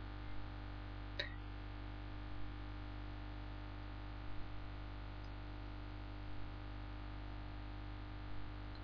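Faint steady electrical mains hum, with a few soft, scattered clicks, the clearest about a second in.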